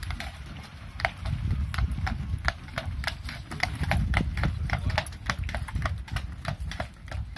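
A horse's hooves clip-clopping at a walk on a paved road as it pulls a carriage, a steady run of sharp strikes, about three or four a second, over a low rumble.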